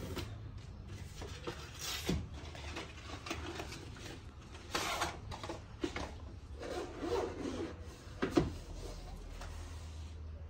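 Hands handling the packaging of a GoPro Hero 10 camera: the box and a black carrying case rub and scrape as the case is taken out and opened, with a sharp click about eight seconds in.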